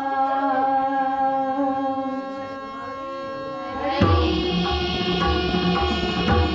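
Marathi bhajan accompaniment: a harmonium holds a steady note between sung lines, then about four seconds in the tabla comes in with a rhythm and the music grows fuller.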